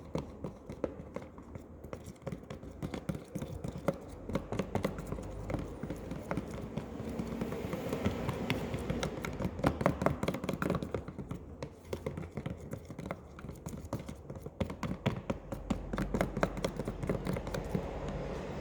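Glue slime mixture with Tenys Pé activator and food colouring being stirred in a container: rapid, irregular clicks and taps of the stirring utensil against the container as the slime begins to activate and thicken.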